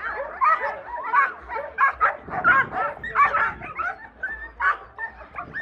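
German Shepherd dogs whining and yipping in a rapid string of short, high cries. The dogs are being held back and are excited by a ball waved in front of them.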